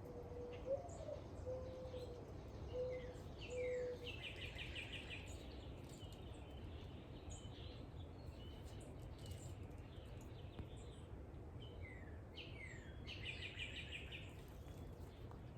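Wild birds at feeders: a low cooing of four notes in the first few seconds, and twice a small songbird's short song of a few slurred notes ending in a fast trill. Over a steady low background rumble.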